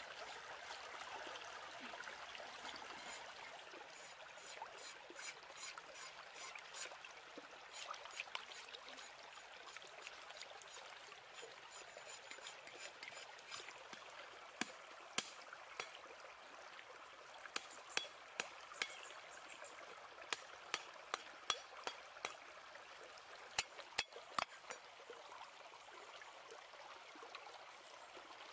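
Faint trickling water. From about halfway on come scattered sharp clicks and scrapes as a knife works over the skin of a large fish.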